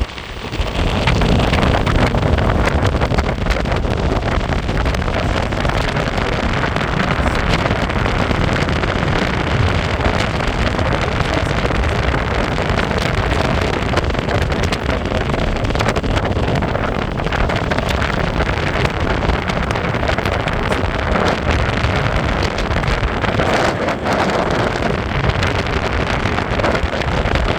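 Wind rushing over the microphone together with an electric skateboard's honeycomb wheels rolling on pavement, riding at speed. The noise rises sharply about half a second in and then holds loud and steady.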